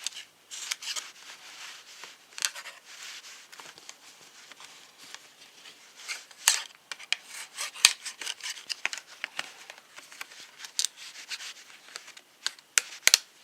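Folding knife blade cutting open a knife's retail package: irregular scraping strokes with sharp clicks and snaps of the packaging, the loudest snaps about six and a half, eight and thirteen seconds in.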